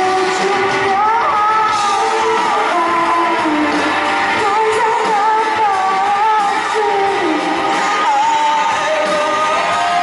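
Live rock band: a woman singing over electric guitar, with long held notes that slide in pitch.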